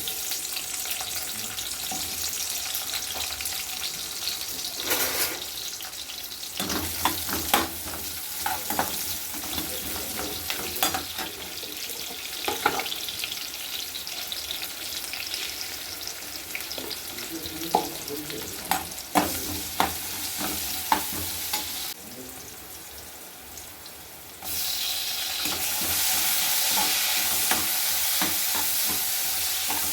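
Food sizzling as it fries in a pan, with a spatula clicking and scraping against the pan as it is stirred. About three-quarters of the way through the sizzle drops for a couple of seconds, then comes back louder and steady with fewer clicks.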